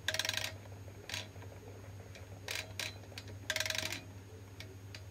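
Faint mechanical clicks and two short buzzing whirrs, one at the start and one about three and a half seconds in, as the steering wheel of a FlySky GT5 RC transmitter is turned back and forth.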